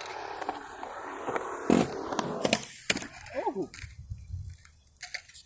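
Skateboard wheels rolling on pavement, then a loud clack of the board hitting the ground about a second and a half in, followed by a few lighter knocks and clatters.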